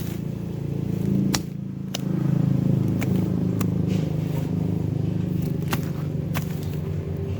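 A motor running steadily with a low hum that gets louder about two seconds in, with sharp clicks every second or so.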